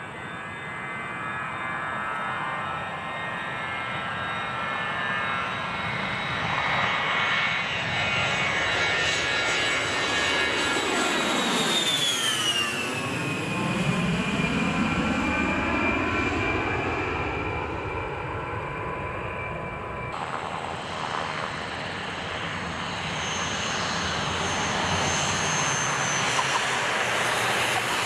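A-10 Warthog jet flying low past, its engine whine and rumble building up, then dropping sharply in pitch as it goes by about halfway through and fading away. About two-thirds of the way in the sound cuts to a steadier engine noise.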